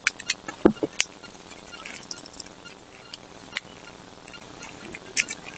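Irregular sharp clicks and taps, with a brief low falling squeak or creak about two-thirds of a second in.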